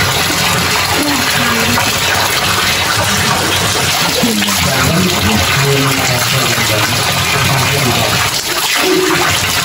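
Spring water pouring from a bamboo pipe spout and splashing onto rock, a steady continuous rush.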